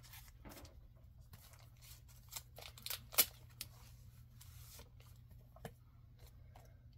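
Bagged comic books being handled: crinkling of the clear plastic sleeves and card backing boards, with a scatter of sharp clicks and snaps, the loudest about three seconds in, over a steady low hum.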